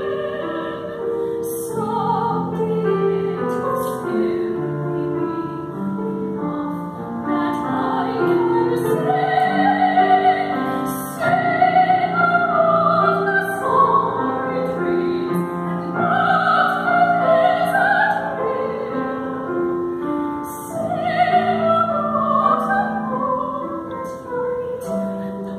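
A classical soprano singing an art song, accompanied by a grand piano.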